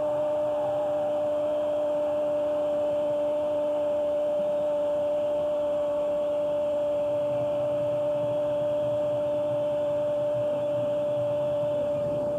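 Football commentator's long drawn-out goal call, a single 'Gooool' held on one steady pitch, with crowd noise beneath.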